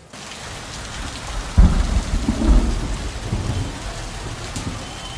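Steady rain, with a loud rumble of thunder about one and a half seconds in that dies away over the next couple of seconds.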